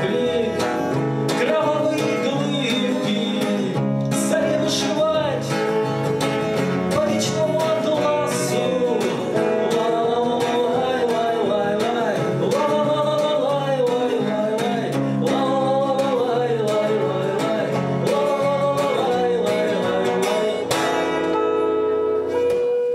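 Live acoustic and electric guitars playing the closing section of a rock song, with a wavering melody line on top, ending on a final chord that rings out near the end.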